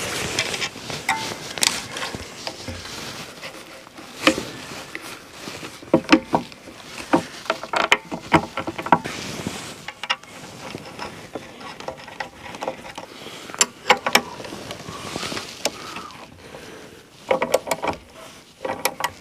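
Irregular clicks, knocks and rattles of an LED beacon bracket being handled and fitted onto a tractor cab's mirror arm, with a denser cluster of knocks near the end.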